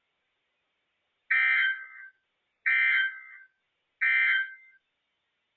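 Emergency Alert System end-of-message tones: three identical bursts of shrill digital SAME data screech, each about half a second long and a little over a second apart, marking the end of the alert.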